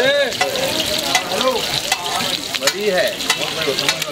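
Hot oil sizzling and crackling around a whole masala-coated fish shallow-frying on a flat iron griddle, with many sharp little pops throughout.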